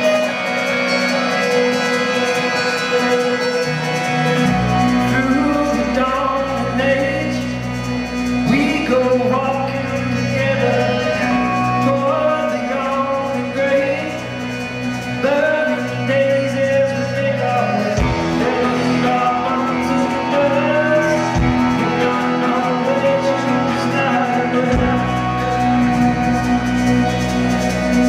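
Live indie rock band playing: electric guitars, with a bass part coming in about four and a half seconds in and a man singing over it.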